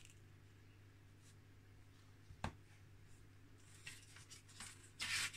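Small tools and tiny plastic kit parts being handled on a cutting mat: a single knock about halfway, then light rustling and clicks, loudest in a short rustle near the end as a pair of hobby side cutters is picked up.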